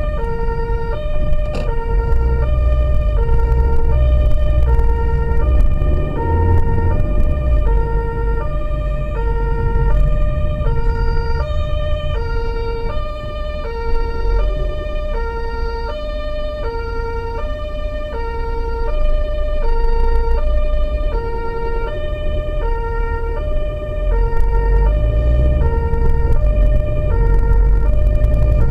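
German two-tone emergency vehicle siren (Martinshorn) alternating steadily between a lower and a higher tone, heard from inside the vehicle's cabin. The vehicle's engine and road rumble run underneath.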